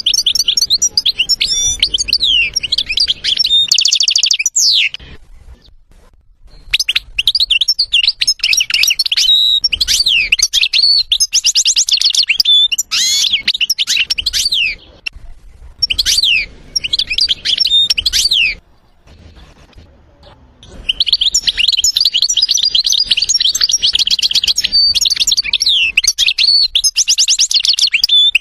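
European goldfinch singing: long bursts of fast, high twittering song with rapid trills and buzzy notes, broken twice by pauses of a couple of seconds.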